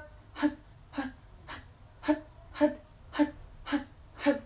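A woman's voice giving short, forceful "hat" exhalations in a steady rhythm, about two a second, each a sharp puff of breath as the belly is pulled in.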